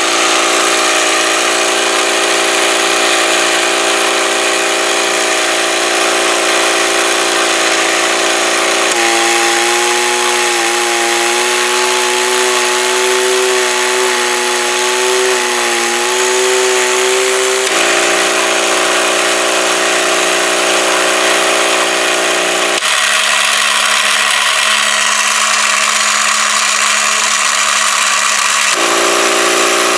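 Small electric motor of a Playmates Fun-To-Drive toy dashboard driving its plastic gear train, running with a loud, steady whir. The pitch pattern changes abruptly four times as the gears are shifted into different positions and the drum's speed changes.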